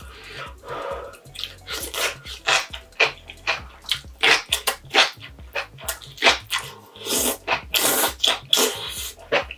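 Close-up wet slurping and chewing of enoki mushrooms and noodles in Buldak fire-noodle sauce: a quick run of short, juicy mouth sounds, loudest in the second half.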